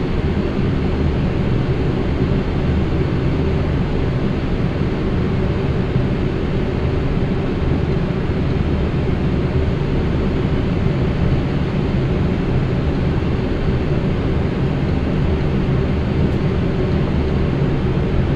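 Boeing 777F airliner on final approach: a steady low rumble of engine noise and rushing air, unchanging throughout.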